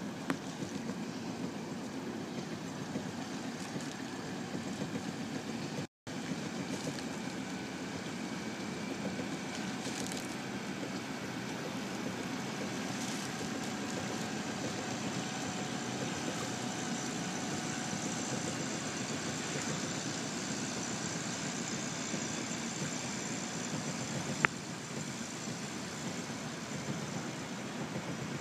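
Steady drone of a motor launch's outboard engine running along behind a rowing single scull, with a faint whine that is strongest midway. The sound drops out briefly about six seconds in, and there is one sharp click near the end.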